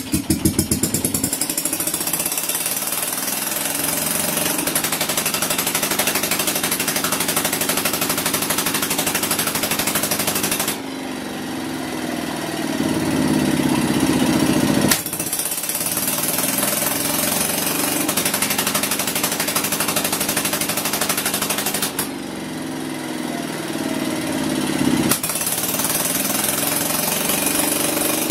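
Circa-1943 Stuart Turner generating set's single-cylinder two-stroke engine running just after being hand-cranked, with a rapid, even firing beat. It is quite noisy because it has no silencer. The sound dips twice, about 11 and 22 seconds in, and builds back up over a few seconds.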